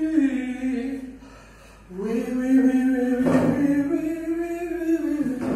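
A man's tenor voice singing a vocal warm-up exercise in two held, gliding phrases, with a short break about a second in. A brief noisy rustle comes about three seconds in.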